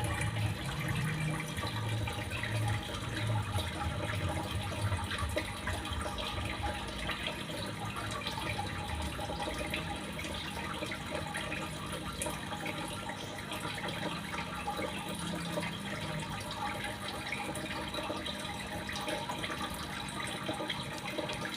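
Running water splashing steadily, with a fuller low rumble in the first few seconds.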